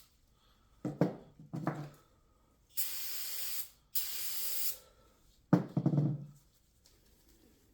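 Aerosol brake cleaner sprayed in two bursts of about a second each, near the middle, cleaning oily undercoating off starter mounting bolts. Short clattering handling knocks about a second in and again about two-thirds of the way through, the later one the loudest sound.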